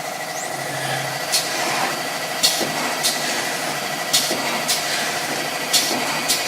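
CNC paper core cutting machine running with a steady mechanical drone and faint whine, broken by short sharp hissing bursts that come in pairs about half a second apart, roughly every second and a half.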